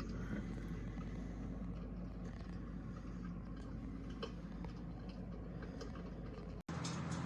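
Electric fireplace insert's simulated fire-crackling sound: scattered small crackles and pops over a steady low hum. The sound drops out for an instant near the end.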